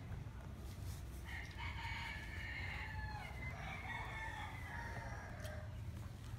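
A rooster crowing: one long drawn-out crow beginning about a second in, over a steady low hum.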